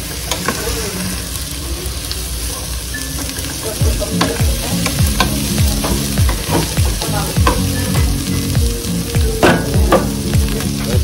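Sliced vegetables sizzling and frying in a nonstick pot, stirred with a wooden spatula. From about four seconds in, the spatula scrapes and knocks against the pot two or three times a second over the steady frying hiss.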